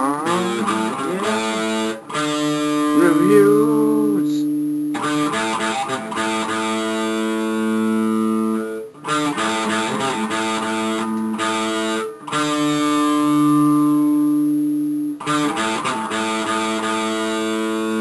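Guitar music with sustained notes in short phrases, broken by brief pauses.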